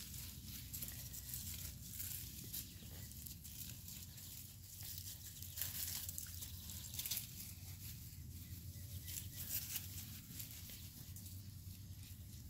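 Faint rustling and light pattering of puppies moving through grass, with scattered small scuffs and a low steady rumble underneath.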